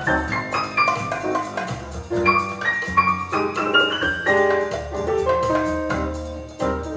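Jazz piano trio recording played back over a home stereo: a run of single piano notes over double bass and drums.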